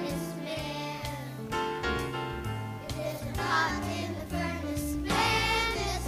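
Children singing a song with instrumental accompaniment and a bass line.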